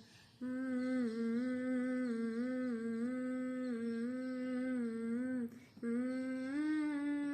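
A woman humming a slow song melody with her mouth closed, in two long wavering phrases with a short breath between them.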